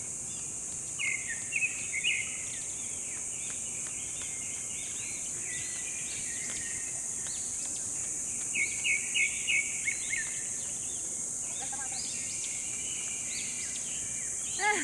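Birds chirping in short, quick calls, a run of about five near the middle and a rising call near the end, over a steady high-pitched insect drone.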